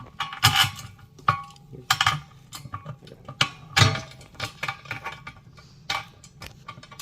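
Metal parts of a TV stand's mounting bracket clinking and knocking as the bracket, bolts and washers are handled and fitted by hand: a series of irregular sharp clinks, a few with a short ring.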